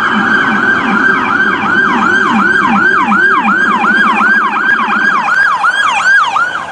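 Electronic emergency-vehicle siren sounding a fast yelp: a loud tone sweeping quickly downward and snapping back up, about three times a second. A lower siren tone runs underneath, sweeping along with it at first and changing to a fast flutter about halfway through.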